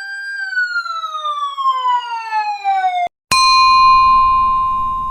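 A siren-like wail that rises briefly and then glides steadily down in pitch, ending in a click about three seconds in; then a bell-like ding rings out and slowly fades.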